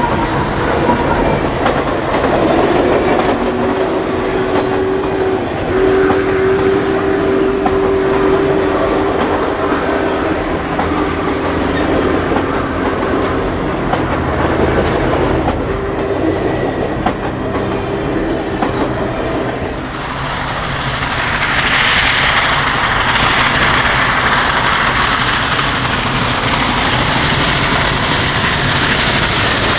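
Union Pacific Big Boy 4014 steam locomotive running, with its steam whistle sounding a low chord in several blasts over the locomotive's rumble. About two-thirds of the way in, the sound changes suddenly to a steady rushing hiss with rail clatter as the train runs by.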